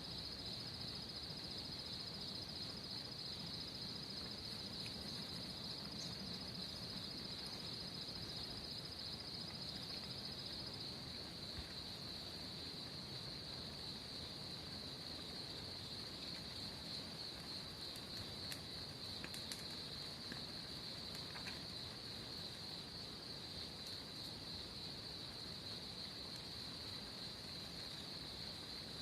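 Insects trilling in a steady, high, continuous chorus, with a few faint ticks about two-thirds of the way through.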